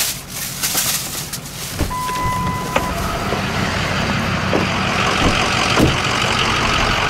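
Clothing rustling and handling knocks as someone climbs out of a pickup cab, a single electronic beep about two seconds in, then a vehicle engine running steadily with a few light knocks.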